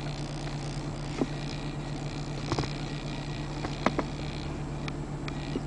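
A steady low hum in the car's cabin, broken by a few short sharp clicks as a smartphone is handled and tapped.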